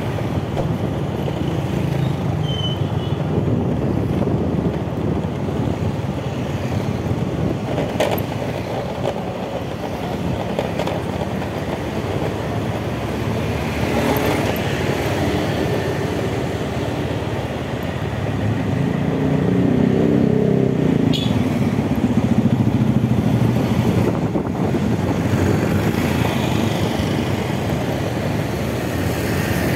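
Motorcycle riding in city street traffic: steady engine and road noise mixed with surrounding motorbikes and cars, louder for a few seconds about two-thirds of the way through, with a few short knocks.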